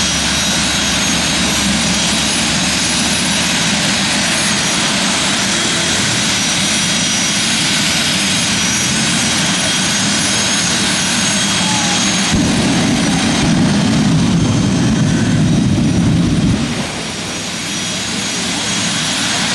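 Jet dragsters' turbojet engines running at the starting line: a steady, loud roar with a high whine. About 12 seconds in the roar gets louder and deeper, eases off near 17 seconds, then builds again at the very end.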